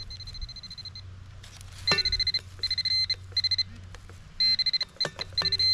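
Handheld metal-detecting pinpointer sounding its high electronic alert: a steady tone for about a second, then fast bursts of beeps, signalling metal close to its tip. A few sharp knocks fall between the bursts.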